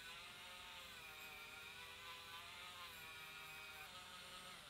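Flex-shaft rotary tool running with a small abrasive wheel on a steel spade bit: a steady, high motor whine that wavers slightly in pitch as the wheel is worked against the metal. It cuts off at the very end.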